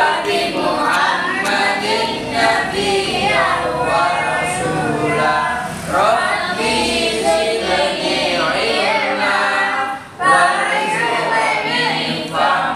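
A group of children chanting an Arabic recitation together in unison, in a sung, melodic style, with a brief pause for breath about ten seconds in.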